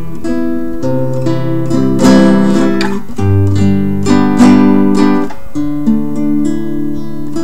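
Instrumental acoustic guitar music: picked notes with chords strummed louder about two seconds and about four and a half seconds in.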